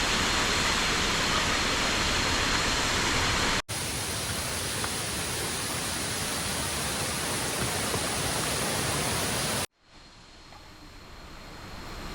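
Steady rushing of a waterfall: an even roar of falling water. It drops out suddenly twice, and after the second break comes back much quieter and slowly grows louder.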